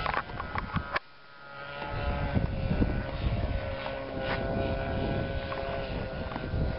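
Super Tigre .45 glow engine of a Wing Man 2 RC sport plane droning steadily in flight, its propeller note holding a steady pitch. The sound drops out briefly about a second in, then comes back.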